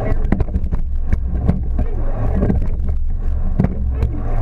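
Racing rowing boat under way: a steady low rumble of wind and water on the boat-mounted camera's microphone, with repeated sharp clicks and knocks of the oars working in their oarlocks.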